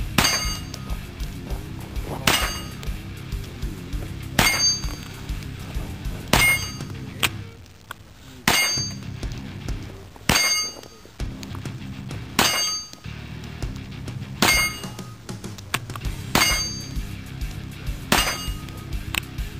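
Ten single shots from a Hi-Point 995TS 9mm carbine, fired at a steady pace about two seconds apart.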